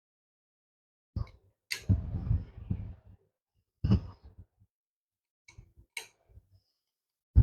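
Parts of a toilet-seat mobility frame and its screws being handled during assembly: a few separate clicks and knocks with short rustles, one sharp click about two seconds in and another about six seconds in.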